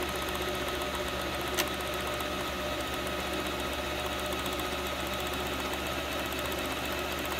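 Singer Simple sewing machine running steadily under the foot pedal as it drives the bobbin winder, filling the bobbin with thread. A single brief click comes about one and a half seconds in.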